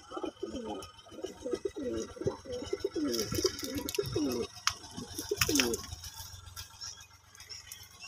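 Domestic pigeons cooing, several calls in quick overlapping succession that stop about six seconds in. A few sharp clicks sound among the later coos.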